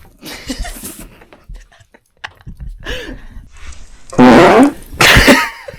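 Two loud, short bursts of a man's voice, about a second apart, near the end, with quieter vocal noises before them.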